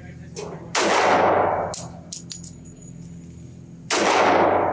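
Two single shots from a SIG Sauer P227 .45 ACP pistol, about three seconds apart. Each is a sharp report with a long echoing tail off the concrete indoor range, and small clicks come between them.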